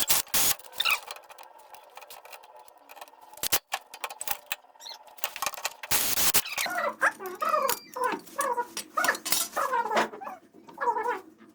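Scattered clicks and knocks, a brief rush of noise about six seconds in, then a run of short whimpering cries falling in pitch, about two a second, from an animal such as a dog.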